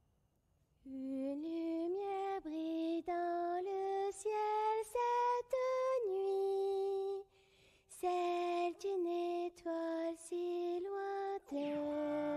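A girl's voice singing a slow lullaby unaccompanied in French, one held note after another in a gently climbing line, with a short break about seven seconds in. Near the end a rising sweep comes in under a long held note.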